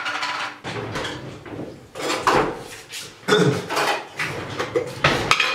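Table knife scraping and clinking against a plate while peanut butter is spread on an omelette: a run of irregular scrapes and taps.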